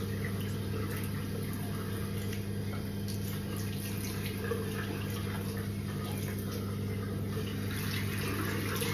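Bathroom tap running into a sink, with water splashing as a face is rinsed by hand. A steady low hum runs underneath.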